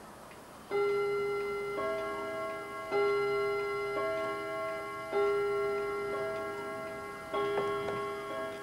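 Chimes sounding a slow run of about six pitched notes, struck roughly a second apart, each ringing on into the next, with a longer gap before the last.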